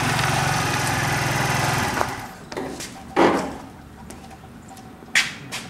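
A 50cc scooter engine running steadily, cutting out about two seconds in; then a few scattered knocks and clatters, the loudest a thump about three seconds in.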